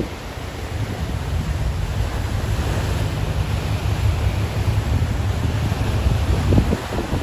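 Wind buffeting the microphone over the rushing wash of ocean waves, with a stronger gust about six and a half seconds in.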